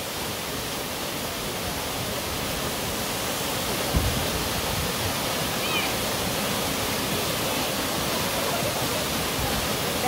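Steady rush of a waterfall pouring into a rock plunge pool, growing slightly louder. There is a single brief low thump about four seconds in.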